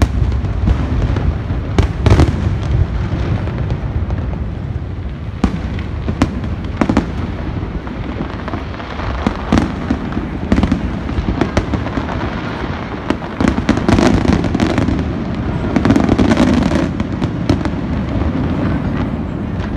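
Aerial fireworks display: many sharp bangs of shells bursting, some in quick clusters, over a continuous rolling rumble, with a busier, louder run of bursts about three-quarters of the way through.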